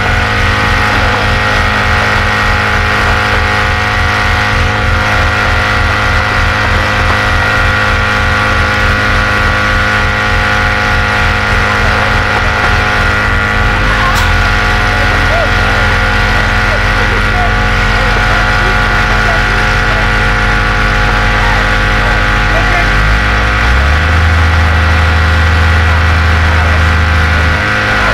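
A large engine running steadily at idle with a low, even throb. About halfway through the throb smooths out, and near the end a deeper, louder note comes in for a few seconds before dropping back.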